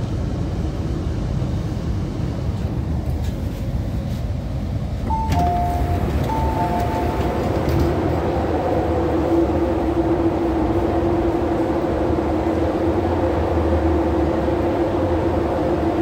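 MTR Kwun Tong line C-Train electric metro train running into a station, a steady low rumble of wheels and running gear. About five seconds in it gets louder and a few short electronic tones at two pitches sound. From then on a steady multi-pitched electrical hum carries on beneath the rumble.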